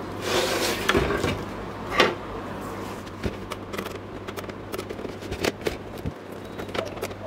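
Screwdriver prying at the plastic paper-pickup clutch and gear on the side of a Canon LBP2900 laser printer. Scraping and handling noise at first, a sharp click about two seconds in, then a run of small clicks and taps as the clutch is worked loose.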